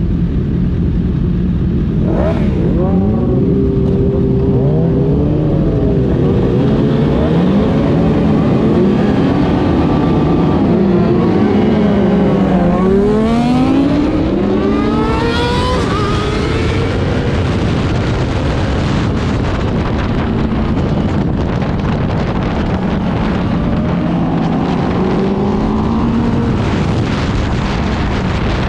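Several superbike engines revving, their pitches rising and falling over one another. About halfway through many climb together as the bikes accelerate hard, then settle into a steadier engine drone.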